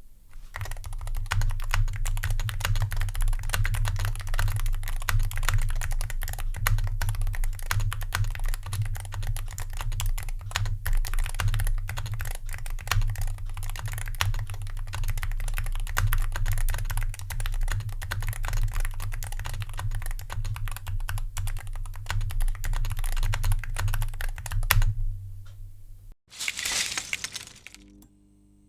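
Fast, continuous typing on a Meletrix Boog75 keyboard with Gateron KS-37B Hall effect switches: a dense stream of keystroke clacks over a low steady rumble. The typing stops suddenly near the end, followed by a short burst of noise.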